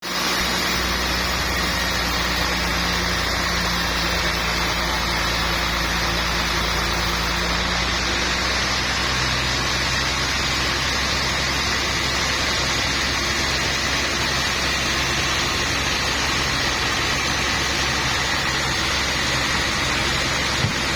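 Sawmill machinery running steadily: a low engine or motor hum under a broad even hiss, the hum dropping slightly in pitch about nine seconds in.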